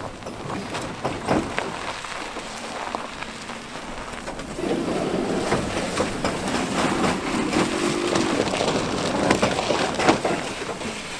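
Electric mini pickup truck driving slowly over snowy gravel and grass: tyre noise full of small crackles, with no engine sound. It gets louder about four and a half seconds in.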